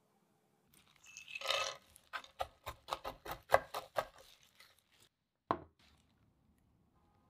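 Chef's knife chopping pistachios on a wooden cutting board. A short noisy scrape comes first, then about eight quick chops at roughly four a second, and one more sharp tap about five and a half seconds in.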